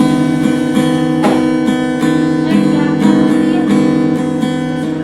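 Acoustic guitar strumming chords in a steady rhythm as an instrumental introduction to a Hindi Christian song.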